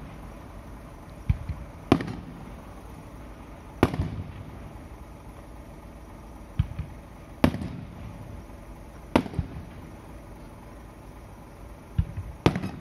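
Fireworks shells bursting: about eight sharp bangs at uneven intervals, each followed by a trailing echo.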